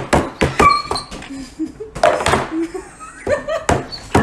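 A hand and a dog's paw slapping down on a wooden table in quick, irregular succession, sharp thumps about two or three a second, with bits of a person's voice in between.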